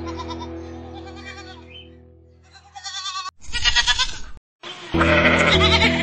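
Goat bleating twice in wavering calls, the second louder and about a second long, over background music that fades out beforehand and comes back loud near the end.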